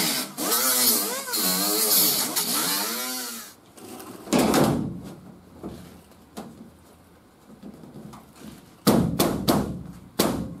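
Air die grinder with a cut-off wheel whining as it cuts through the rusted sheet metal of a truck's wheel arch, its pitch sagging and recovering as the wheel loads up in the cut; it stops about three and a half seconds in. Afterwards a few knocks and rustles as a template sheet is handled against the fender.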